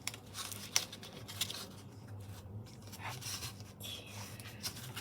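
Tweezers and paper stickers being handled close up: small clicks and paper rustles, with a sharper click a little under a second in.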